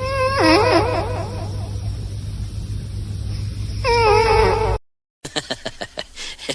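A pet animal crying out in two long wavering calls, one at the start and another about four seconds in. After a short gap comes a quick run of clicks and taps.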